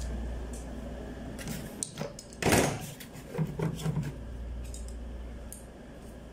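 Scattered clicks and knocks of metal hand tools being handled: a refrigerant-pipe flaring tool's flare block and yoke, and a small tube cutter. There is one louder, longer noise about two and a half seconds in.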